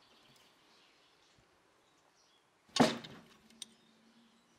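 A single sharp metallic clank about three seconds in, ringing on briefly, from a 17 mm flat wrench on the cone nut of a bicycle hub axle, followed by a lighter click.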